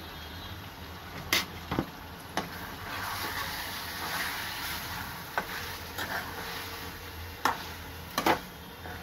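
Steel spoon stirring chicken with chopped tomatoes and spice powders in a hammered steel kadai, as the masala is fried into the chicken. Sharp clinks of the spoon against the pan come about eight times, over a low sizzle that is loudest in the middle.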